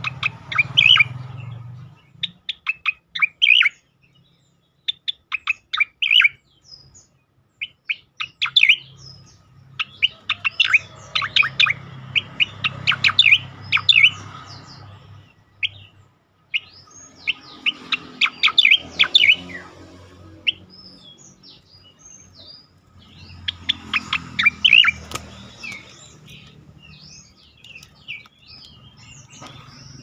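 Striated grassbird singing: loud bursts of rapid, sharp chattering notes, repeated every few seconds. Thinner high whistled notes come between the bursts, more of them near the end.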